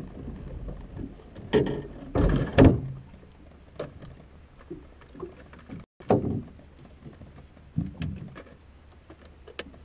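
Scattered knocks and thumps against an aluminum fishing boat's hull as someone moves and handles gear inside it, loudest in a short cluster about two seconds in, then a few lighter single knocks.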